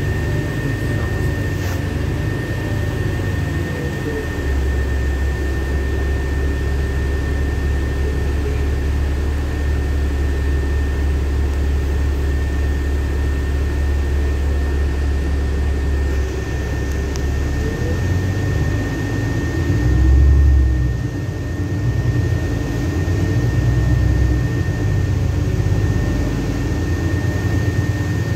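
Inside a moving LiAZ-5292 low-floor city bus: steady engine and road rumble with a deep drone that grows heavier for a stretch and eases again, a constant thin high whine over it, and a brief louder surge about two-thirds of the way through.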